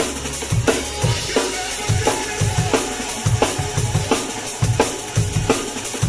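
Acoustic drum kit played in a fast drum-and-bass groove: snare backbeat cracking about every 0.7 seconds, bass drum kicks in between, and a steady wash of cymbals.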